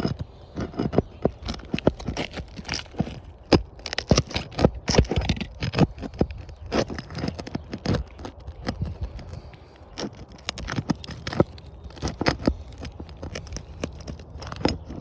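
Metal roof snake working under asphalt shingles, trying to pry roofing nails loose: irregular scrapes, clicks and knocks throughout. The nails hold fast and do not come out.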